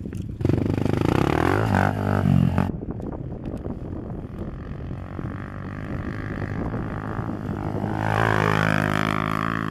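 Small pit bike's engine revving hard about half a second in, the sound breaking off abruptly a couple of seconds later. It then runs on steadily as the bike rides along and grows louder as it comes close near the end.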